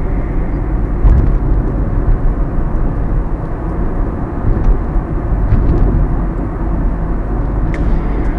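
Moving car, its steady low road and engine rumble filling the sound with a constant uneven churn.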